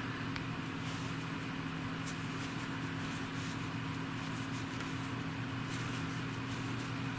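Steady low hum made of several held tones, with a few faint scattered ticks.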